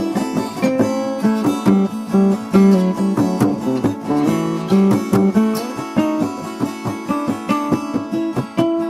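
Acoustic guitar playing an instrumental jam, with rapid picked and strummed notes.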